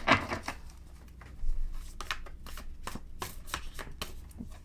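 Tarot cards being shuffled and handled: a run of quick, irregular card flicks and taps.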